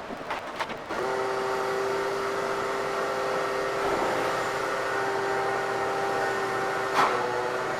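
A vacuum cleaner switched on about a second in, after a few clicks, then running steadily with a constant motor whine over a rushing hiss, picking up sanding dust from the floor before finishing. A knock near the end.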